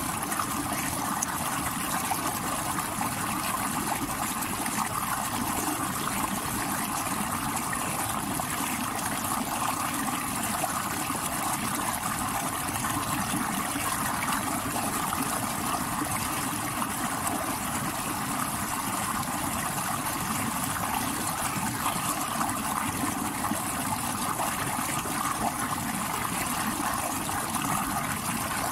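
Stream water rushing over rocks: a steady, unbroken wash of water noise.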